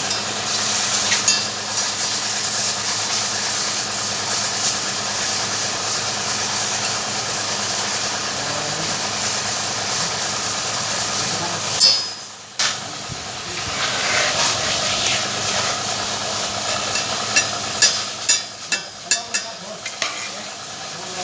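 Stick-welding arc crackling and hissing steadily as the electrode burns. It breaks off abruptly about halfway through and restarts moments later. A string of sharp taps or pops comes near the end.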